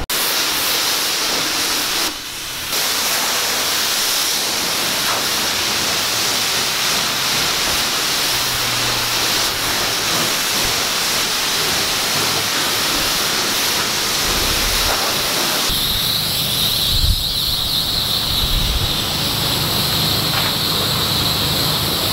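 Self-serve car wash pressure wand spraying water onto a car, a steady hiss. It dips briefly about two seconds in and changes tone near the end.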